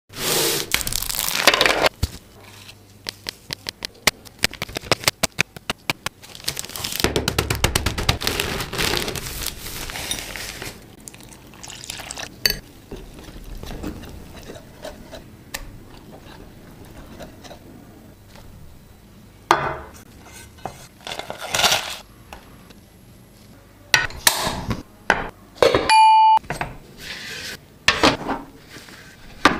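A utensil clinking, tapping and scraping against a ceramic bowl and a steel saucepan as dry ingredients are mixed and a thick chocolate sauce is stirred, with a quick run of taps early on. A short steady beep sounds near the end.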